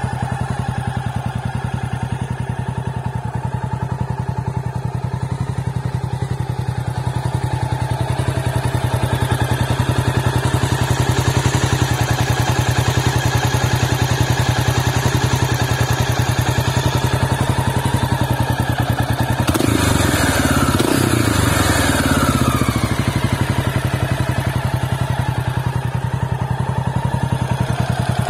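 Honda XL600R's air-cooled single-cylinder four-stroke RFVC engine idling steadily, with one brief blip of the throttle about two-thirds of the way through that slides back down to idle.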